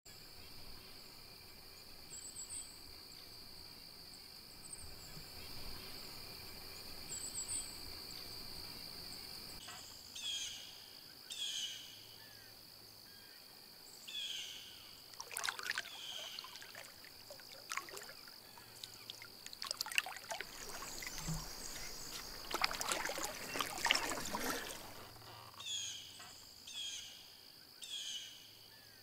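Wilderness ambience: a steady high-pitched hum underneath, a bird repeating short down-slurred calls, often in pairs, from about ten seconds in, and water splashing and trickling in bursts around the middle.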